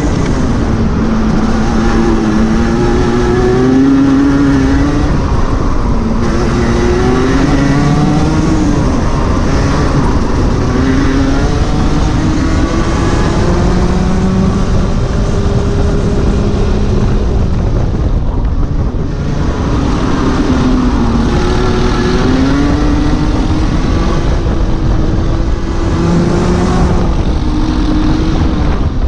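Rotax 125 Junior Max Evo kart's single-cylinder two-stroke engine at racing pace, its pitch rising through each straight and dropping for each corner, over and over. About eighteen seconds in the engine falls off briefly before climbing again.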